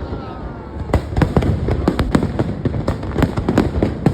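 Aerial fireworks going off in a rapid, dense string of bangs and crackles, after a brief lull in the first second.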